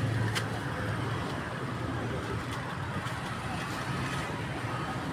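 Steady street background noise with a low hum, like passing road traffic, broken by a few faint clicks.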